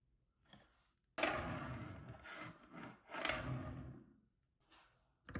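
Handling noise from a diecast toy car being pressed down and moved by hand on a surface: a rubbing scrape begins suddenly about a second in, swells again near the middle and fades out.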